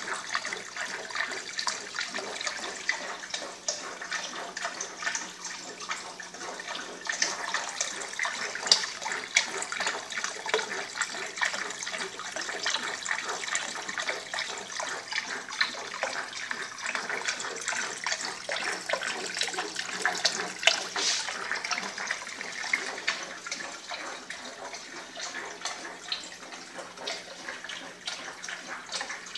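Water splashing and trickling steadily into an aquarium from a pump-fed return tube in an aquaponics setup, with a faint low steady hum under it.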